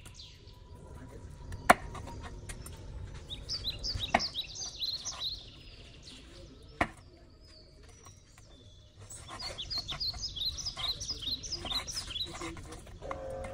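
Hand-forged chef knife chopping through ribs onto a wooden cutting board: three sharp knocks, the loudest about two seconds in. Birds chirp in two quick runs in the background.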